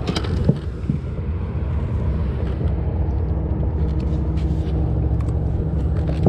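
A motor running steadily with a low, even hum. A few light clicks near the start come from the fish and lure being handled.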